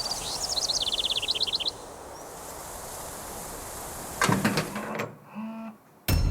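A bird sings a quick run of high, evenly repeated chirps over a steady outdoor hiss. Later comes a short clatter and a brief low hum. Music starts right at the end.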